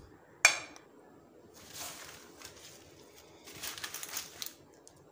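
A glass plate knocks sharply against the tabletop about half a second in, then dry corn husks rustle twice as they are gathered up and cleared away.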